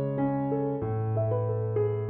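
Instrumental keyboard music: a slow melody of held notes over a low bass note that changes a little before a second in.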